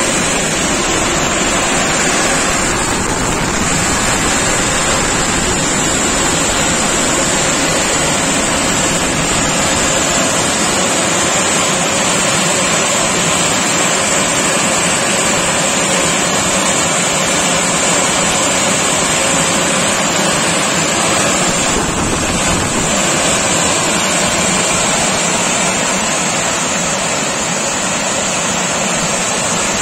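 Touchless automatic car wash machine running over a car, a steady loud rushing noise.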